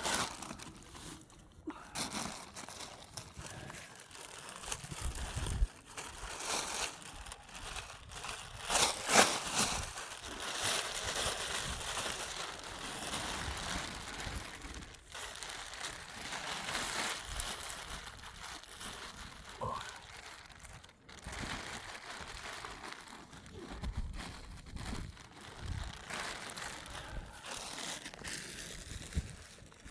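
Bags rustling and crinkling as they are worked down over young fig trees to cover them against snow, an irregular crackling handling noise, loudest about nine seconds in.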